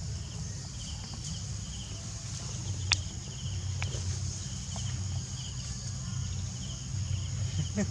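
Insects in tropical forest: a steady high drone with repeated short chirps over it, and a low rumble underneath. One sharp click about three seconds in, with a fainter one about a second later.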